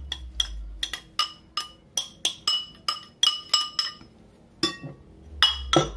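Kitchen utensil clinking against glass dishware: a run of sharp, ringing clinks about four a second, a short pause, then a few more clinks near the end.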